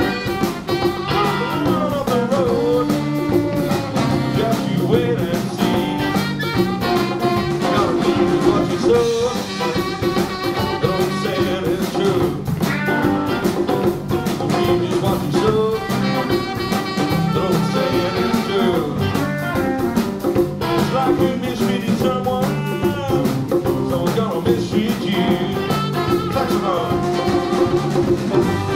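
Live blues band playing, with electric guitars, saxophone, bass and drum kit.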